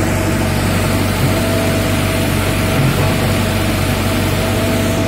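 Komatsu PC75 hydraulic excavator's diesel engine running at a steady, even drone.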